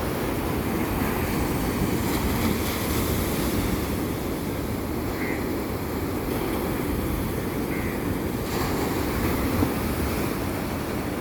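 Sea waves and surf washing steadily, with heavy wind buffeting the microphone.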